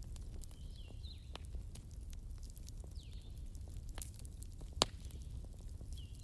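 Wood fire crackling, with scattered small snaps over a low rumble and one sharp, louder pop about three-quarters of the way through. A faint high, falling chirp recurs in the background every couple of seconds.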